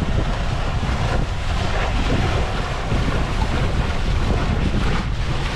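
Steady wind buffeting the microphone over rushing, splashing water, with a boat engine running under it.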